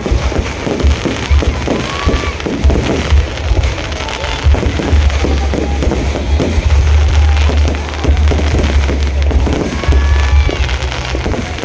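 Fireworks going off in a dense, continuous barrage of rapid bangs and crackles over a deep rumble, with music playing along.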